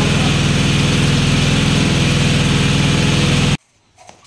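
Small engine-driven water pump running steadily at constant speed, drawing water up through its suction hose; the sound cuts off suddenly near the end, leaving only faint clicks.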